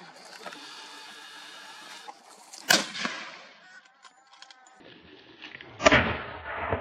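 Two hunting rifle shots about three seconds apart, each a sharp crack followed by a trailing echo.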